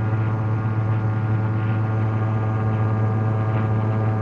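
Rotax 582 two-cylinder two-stroke engine of an ultralight aircraft running steadily in flight: an even drone with a strong low hum and many overtones.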